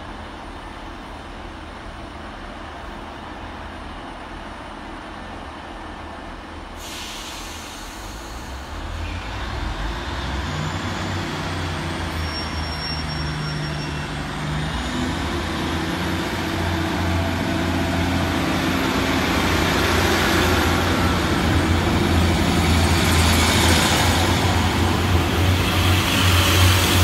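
Northern Class 150 diesel multiple unit pulling out of the station. A hiss of air about seven seconds in is followed by a low, steady engine note that grows louder as the train gathers speed past the platform.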